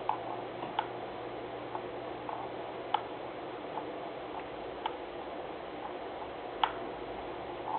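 Light, sharp clicks at uneven intervals, about nine in all, the loudest near three seconds in and just before the end, over a steady background hum.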